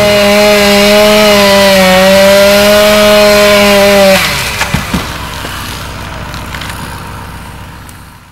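Chainsaw running at high revs with a steady, slightly wavering pitch, then cut off about four seconds in; a few sharp knocks follow and the remaining sound fades away.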